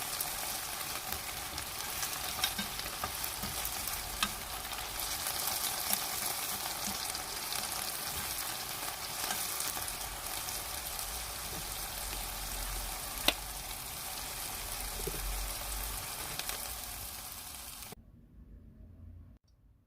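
Shishito peppers and anchovies sizzling in a soy-sauce glaze in a wok-style pan while being stirred, with scattered sharp clicks of the spatula against the pan, the loudest about two-thirds of the way through. The sizzling fades out near the end.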